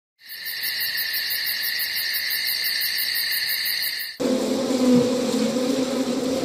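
Crickets chirping in a steady high trill with fast even pulses, running about four seconds and cutting off abruptly. A low steady buzz then takes over.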